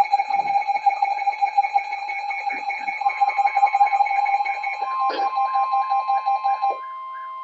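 Electronic alarm tones from an Emergency Alert System weather warning: a loud, fast-pulsing tone with a warble over it, joined by a steady higher tone about three seconds in. A sharp click comes about five seconds in, and the pulsing tone cuts off near the end.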